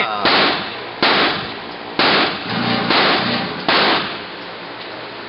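A semi-automatic pistol firing a string of single shots about a second apart, stopping about four seconds in. Each shot rings on in the echo of the concrete-walled range.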